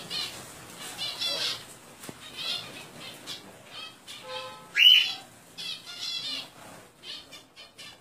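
Small caged birds squawking and flapping their wings in repeated short bursts, with one loud shrill call about five seconds in: the birds' alarm at a snake climbing the aviary mesh.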